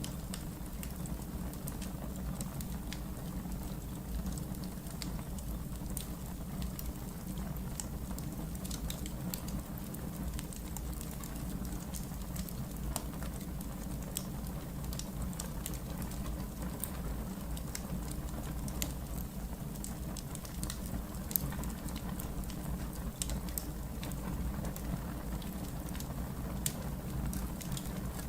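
Wood fire crackling in a fireplace: scattered sharp pops and ticks over a steady low rumble.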